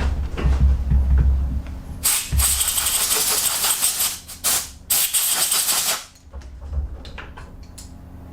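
Compressed-air blow gun blasting a machined part clean in three bursts, one long and two short, about two to six seconds in, after some knocks from handling the part.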